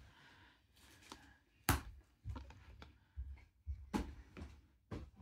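Prizm basketball cards being handled and flipped through: a few short clicks and taps as the cards slide and knock against one another, the sharpest about a second and a half in.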